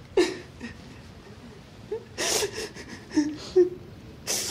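A woman crying: a few sharp, noisy breaths with short whimpers between them.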